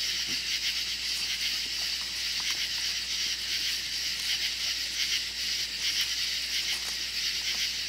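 A steady, high, finely pulsing chorus of night insects, with a few faint short yelps from hound puppies worrying a raccoon.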